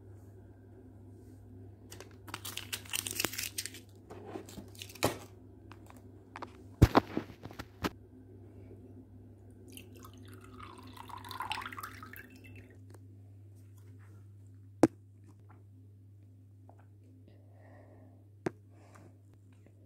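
Juice poured from a carton into a glass tumbler for about two and a half seconds, after knocks and rustles of handling the carton and glass. Two sharp clicks come later.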